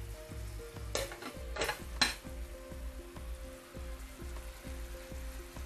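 Background music with a steady bass beat, and from about one second in a brief burst of sizzling from food frying in a pan, ending in a sharp crackle near two seconds.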